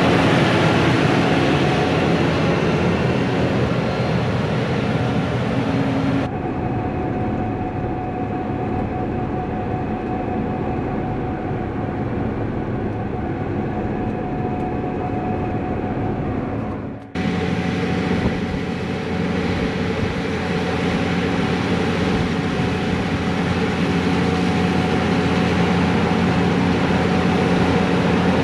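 Heavy diesel harvest machinery running steadily in a wheat field, a deep engine hum with a constant pitch under a rushing hiss. The sound changes abruptly twice, about six and seventeen seconds in, and the hiss drops away in between.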